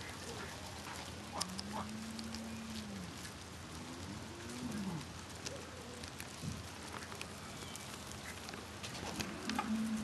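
Pen birds calling, ducks among them: several low, drawn-out arching calls, over scattered small clicks and rustling as guinea pigs munch greens.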